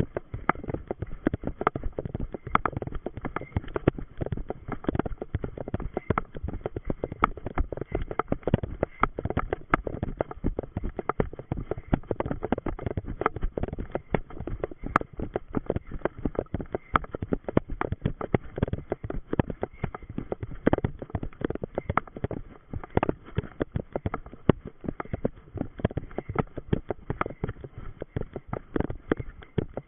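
A runner's rapid footsteps on a forest trail, with rustling of clothing and undergrowth.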